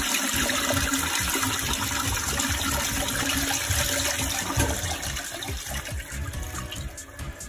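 Toilet flushing: water rushing and swirling around the bowl, easing off over the last couple of seconds.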